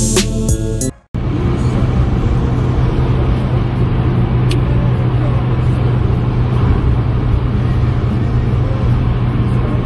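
About a second of background music with a beat, which cuts off suddenly; then the steady road and engine noise of a car driving on a motorway, heard from inside the cabin as a constant low hum.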